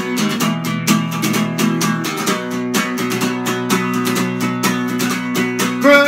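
Acoustic guitar strummed in quick, steady strokes, playing chords in an instrumental passage between sung lines of a rock song.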